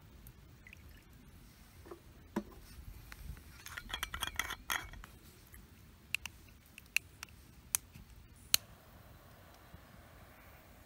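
Stainless steel camping stove parts and cups clinking and rattling against each other as they are handled: a few clinks, a dense cluster of rattling clinks about four seconds in, then a handful of sharp single clicks.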